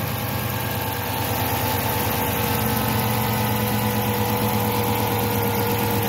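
2006 Chrysler 300 engine idling steadily, with its freshly installed serpentine belt and pulleys turning. The belt is tracking correctly and there is no squeal or other odd noise.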